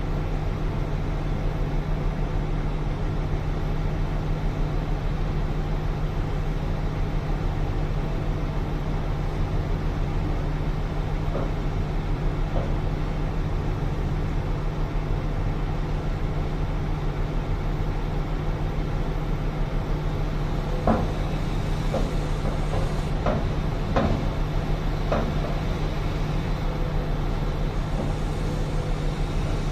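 Heavy diesel mining machinery, a CAT 6020 hydraulic excavator loading a CAT 777 haul truck, running with a steady deep hum. Several sharp knocks come in a cluster a little past two-thirds of the way through.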